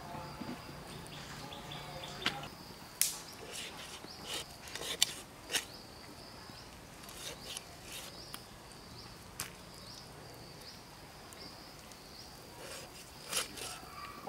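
Raw chicken being skinned and cut by hand against an upright boti blade: scattered wet snaps and clicks at irregular moments, the loudest about five seconds in and near the end, over a steady high insect trill.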